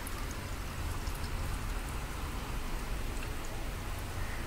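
Diesel dripping and trickling off a used fuel filter element back into its housing as the element is lifted out, over a steady low rumble.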